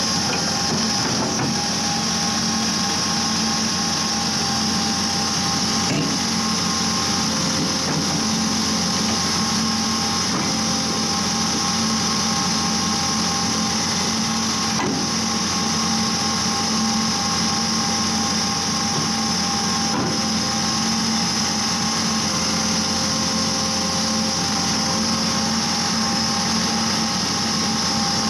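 Vermeer D80x100 horizontal directional drill running steadily under load, its diesel engine and hydraulic drive giving a constant hum with a steady whine over it, as the carriage rotates and pushes the drill pipe.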